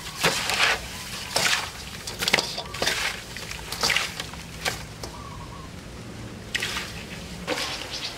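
Hands scrubbing and squeezing a mass of slimy eels in a stainless-steel bowl of water, the last wash before the eels are clean: irregular wet squelching and sloshing strokes, with a pause of about a second and a half past the middle.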